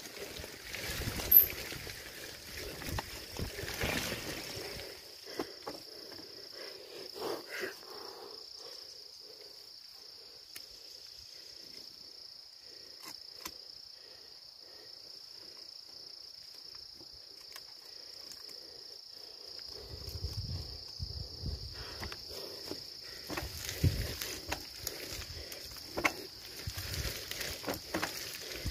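A steady, high insect drone from the rainforest runs throughout. Under it, a low rumble with knocks from the trail bike on the muddy track fills the first few seconds, drops away, and comes back about twenty seconds in.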